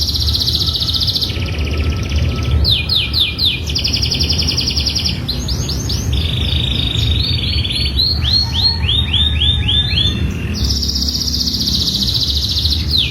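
Domestic canary singing a long, unbroken song. It is built of phrases of rapidly repeated notes: fast buzzy trills alternate with rows of downward-sweeping notes, and the phrase changes every second or two. A steady low rumble runs underneath.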